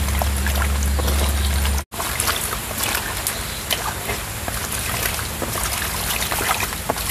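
Stream water running, with splashing and swishing as hands stir genjer (yellow velvetleaf) greens in a woven bamboo basket held in the current. The sound cuts out for an instant about two seconds in.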